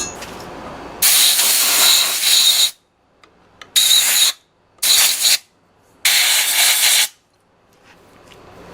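Compressed-air blowgun blowing dust out of a machine's dust-clogged bearing in four bursts of hiss, the first lasting about a second and a half and the others shorter.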